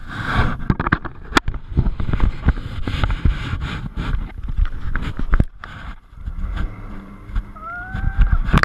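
Wind buffeting the microphone of a camera on a moving jet ski, with irregular thumps as the craft slaps over the chop and its engine rumbling underneath. A brief rising whine comes near the end.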